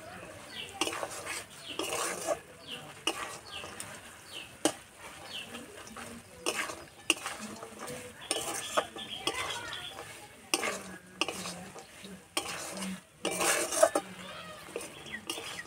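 Flat metal spatula stirring and scraping sago pearls in sugar syrup around an iron kadai, metal on metal in irregular strokes, a few louder scrapes near the end. The pearls are being turned so the syrup soaks in.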